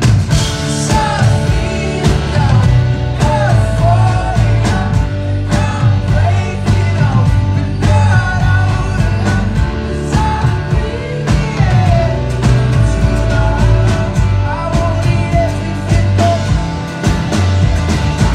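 Live band playing a pop-rock song at a concert, heard from the crowd: steady drums and bass under guitar, with a wavering melodic line on top and no sung lyrics.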